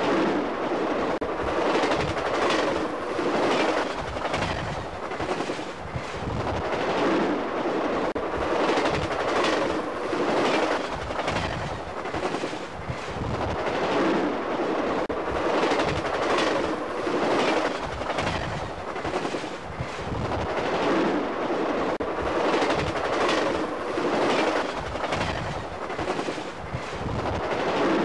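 Stainless-steel Amtrak passenger cars rolling past close by, their wheels clattering rhythmically on the track over a continuous rumble that swells and fades as each car goes by.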